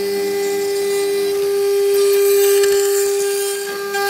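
CNC router spindle running at a steady high pitch as its end mill cuts a pocket in acrylic sheet. The high cutting hiss grows louder about two seconds in, then eases.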